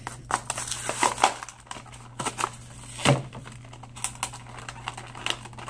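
Stiff plastic blister pack of a die-cast toy car being prised open by hand: a run of crinkles, clicks and cracks, with one louder crack about three seconds in.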